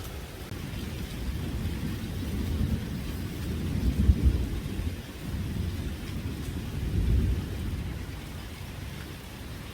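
Steady rain falling, with a deep low rumble that swells and fades twice, strongest about four seconds in and again near seven seconds.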